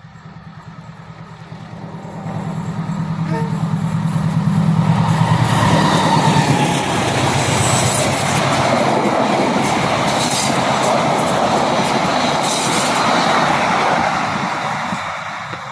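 Diesel-hauled passenger train passing close by. The locomotive's engine drone builds over the first several seconds, then the carriages go by with a steady rush of wheel noise and clacks over the rail joints, fading near the end.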